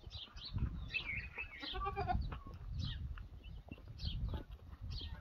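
A goat bleats once, briefly, about two seconds in, over short high chirps of small birds and a low rumble.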